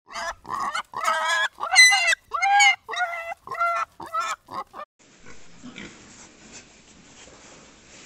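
A pig squealing in a quick series of about ten short, high calls. About five seconds in the sound cuts to quieter low grunting from a group of pigs.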